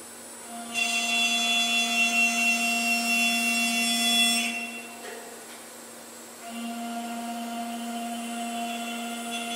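CNC wood lathe's GMN router spindle with a small bit cutting a turned wooden leg: a high-pitched whine with cutting noise that starts about half a second in and runs loud for about four seconds, then dies away. A second, quieter cutting pass begins about two seconds later, over a steady machine hum.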